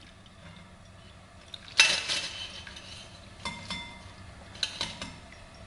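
Stainless-steel pot and fine-mesh sieve clinking against each other and the glass bowl as scampi stock is strained: a few sharp metallic clinks, some ringing briefly, the first about two seconds in.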